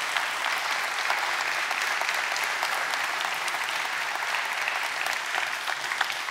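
Audience applauding at the end of a conference talk: steady, sustained clapping from many hands, tailing off just after the end.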